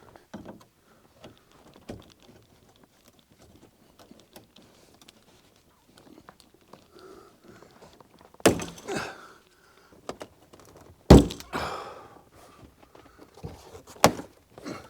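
Quiet handling, then three loud knocks, about 8.5, 11 and 14 seconds in, the first two each followed by about a second of rustling: a headliner panel and its fir-tree clips being worked loose inside a car's cabin.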